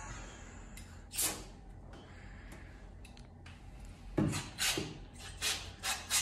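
Aerosol carburetor cleaner sprayed in short hissing bursts onto a snowmobile carburetor: one burst about a second in, then several quick bursts close together near the end.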